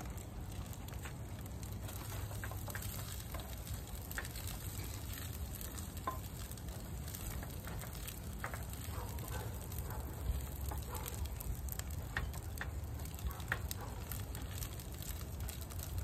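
Sweet potatoes and rice frying with a light sizzle in a frying pan. A spatula scrapes and taps against the pan now and then as they are stirred.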